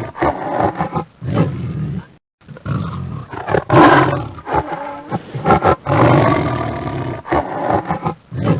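A tiger roaring again and again, long rough roars with a short break about two seconds in.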